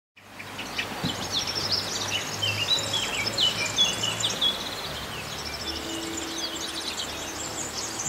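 Birds singing outdoors: a busy mix of quick chirps, trills and short whistled sweeps that fades in at the start.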